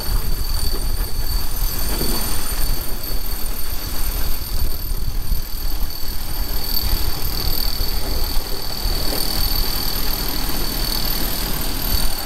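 Heavy construction machinery running with a steady high-pitched whine over it, mixed with wind buffeting the microphone in a loud, fluttering rumble.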